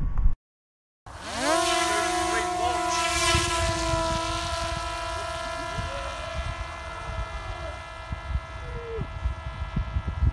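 Drone's electric motor and propeller spinning up with a rising whine about a second in, then running at a steady pitch and gradually fading.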